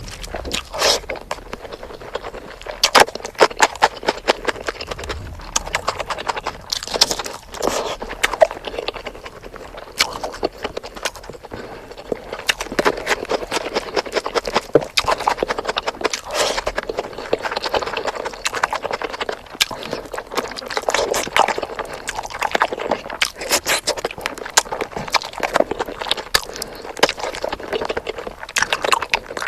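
Close-miked eating sounds from someone eating spicy chicken: chewing with irregular, rapid mouth clicks and smacks.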